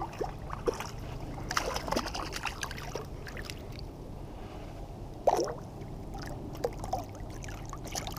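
Light water sounds and small knocks around a kayak on a river: scattered short clicks and splashes, with one sharper knock or splash about five seconds in.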